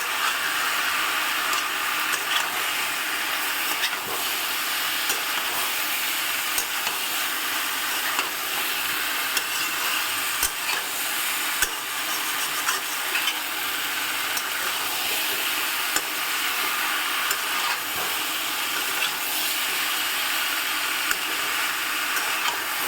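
Chicken pieces with potato and papaya sizzling in mustard oil and spices as they are lightly sautéed, stirred with a spatula that clicks and scrapes against the pan now and then.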